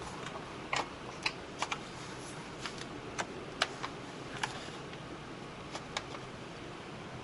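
Light, irregular clicks and taps of a screwdriver and small screws against a laptop's plastic case during disassembly, about a dozen in the first six seconds, then stopping.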